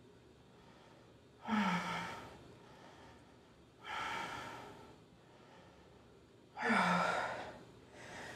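A woman resting face down on a bed lets out three heavy sighing breaths, about two and a half seconds apart. Each starts with a brief voiced sound that drops in pitch and trails off into a breathy exhale.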